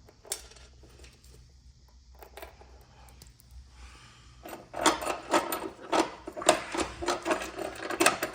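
Small metal hardware clinking and rattling as a bolt and washer are picked up and fitted: a few faint clicks, then about halfway through a dense run of sharp metallic clicks and rattles for several seconds.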